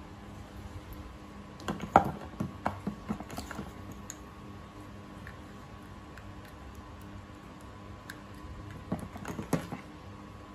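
Small clicks, taps and rustles from a smartwatch and its USB charging cable being handled on a tabletop, in two clusters about two seconds in and about nine seconds in, over a faint steady hum.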